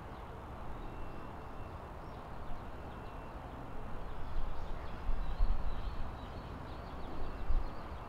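Outdoor nature ambience: a steady rushing hiss with faint bird calls, and gusts of wind buffeting the microphone with a low rumble from about halfway in.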